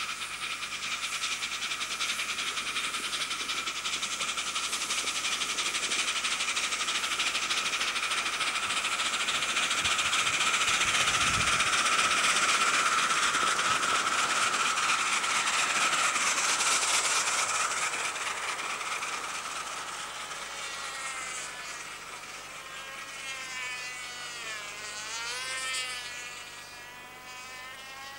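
Miniature live-steam locomotive hauling a passenger train past, with rapid exhaust beats, steam hiss and wheel clicking over a steady high-pitched tone. It grows louder as the train comes close, then fades as it runs away. In the last few seconds a wavering high-pitched sound rises and falls.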